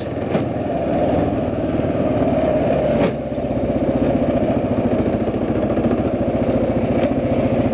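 Motorcycle engine running steadily with an even, fast beat while the bike is ridden slowly. It dips briefly about three seconds in.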